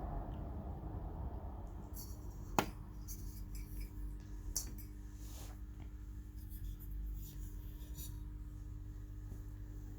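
Hands handling parts of a heat lamp unit: a sharp click about two and a half seconds in, then light scraping and tapping, over a steady low hum.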